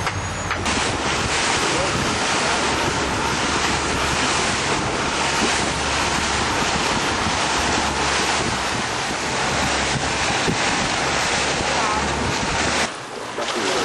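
Steady rush of wind buffeting the microphone together with sea water noise, which cuts off suddenly near the end.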